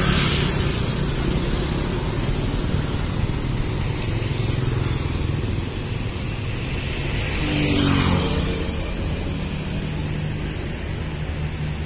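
Road traffic: a bus's diesel engine gives a steady low rumble while motorcycles and cars go by. One passes close at the start and another about eight seconds in.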